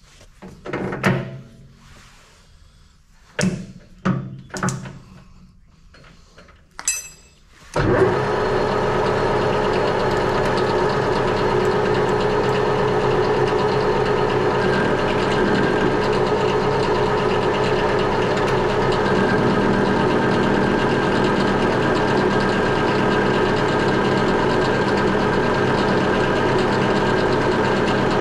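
A few sharp metallic knocks and clanks, then about eight seconds in a metal lathe starts up and runs steadily. Its four-jaw chuck spins square bar stock with an even mechanical hum made of several steady tones.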